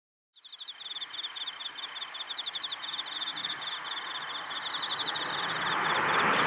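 Autumn crickets chirping in quick, repeated pulse trains at a steady high pitch. A broad rush of noise swells up near the end, under the chirping.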